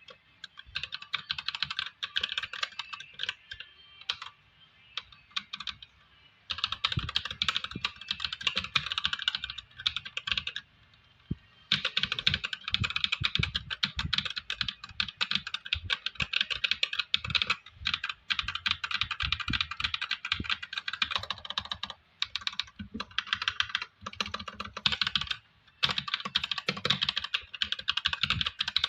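A mechanical keyboard fitted with DA x AJAZZ Cocoon 50 g tactile switches being typed on in fast, dense runs of clicks. There is lighter, sparser typing and a few short pauses between the runs.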